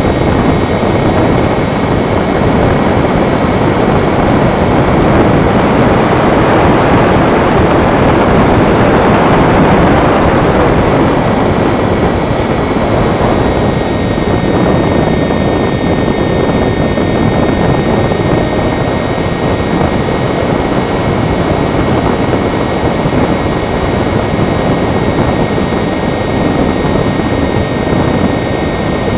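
Electric motor and propeller of a foam HobbyKing Fox model glider running under power, a steady whine recorded from a camera on board, with wind rushing over the microphone.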